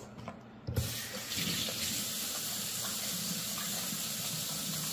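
A kitchen sink faucet comes on after a knock about a second in, then water runs steadily as hands are rinsed under it.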